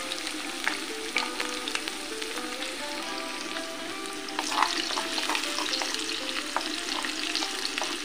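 Whole garlic cloves frying in hot oil in a wok: a steady sizzle full of small crackles, stirred with a wooden spatula. The crackling grows a little louder about halfway through.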